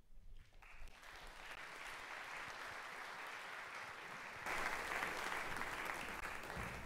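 Congregation applauding in a hall. The clapping starts under a second in and grows louder about halfway through.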